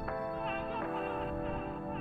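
Instrumental background music with sustained notes, the notes changing about every half second to a second.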